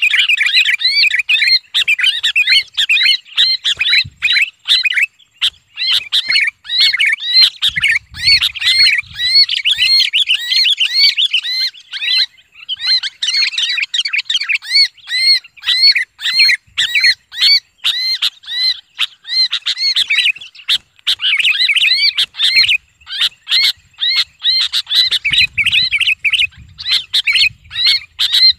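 Sooty-headed bulbul giving harsh distress screams while held in the hand, a rapid run of calls several a second with a few brief breaks. It is the alarm cry of a captured bulbul, used as a lure call to draw in other bulbuls.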